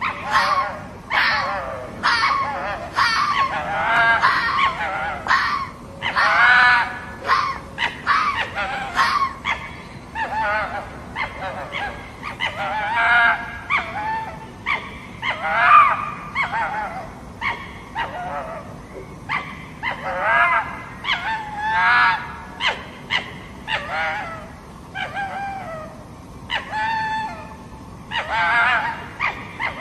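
A fox calling again and again: a rapid run of short, harsh yelps and squeals, several a second, with brief pauses between clusters.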